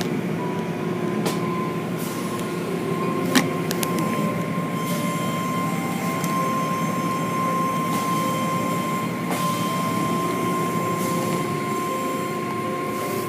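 Automatic tunnel car wash heard from inside the car: a steady rush of water spray and cloth wash curtains sweeping over the body and windshield, with a steady machine whine underneath. One sharp knock about three seconds in.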